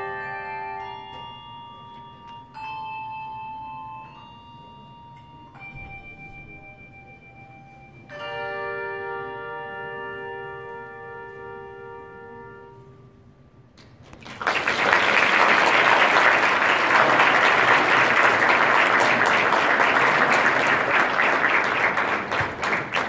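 Handbell choir ringing its closing chords of brass handbells, the last chord struck about 8 s in and left to ring and fade. About 14 s in, an audience breaks into applause, much louder than the bells, which dies away just at the end.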